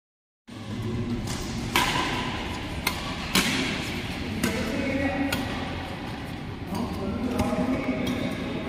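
Badminton rackets striking a shuttlecock during a doubles rally: sharp, irregular hits about once a second over a steady background hum from the hall, starting after half a second of silence.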